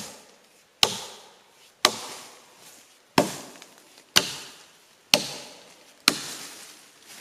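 Axe chopping into fresh green beech wood, limbing a fallen tree: about seven sharp blows at a steady pace of roughly one a second, each dying away quickly.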